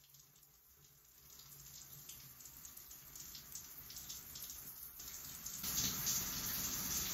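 Shower running: a steady hiss of water spray, faint at first and louder from about six seconds in.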